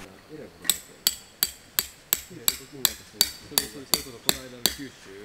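A hammer driving a tent stake into the ground: about a dozen sharp, ringing strikes at an even pace of roughly three a second, stopping shortly before the end.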